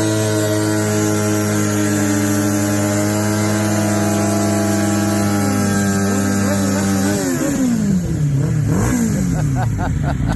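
Honda VFR800's V4 engine held at steady revs during a burnout. About seven seconds in the revs drop sharply, then rise and fall twice and settle.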